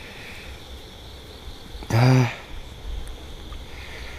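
A man's single short exclamation of disappointment about two seconds in, over steady night insects chirring.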